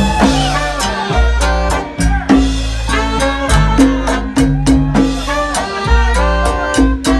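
Live salsa band playing, with congas struck in a quick, steady rhythm over the rest of the band.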